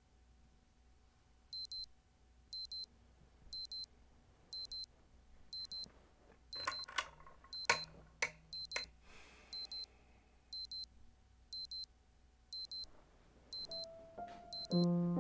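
Electronic alarm beeping in quick pairs of short, high tones about once a second. A few sharp knocks come partway through, and piano music comes in near the end.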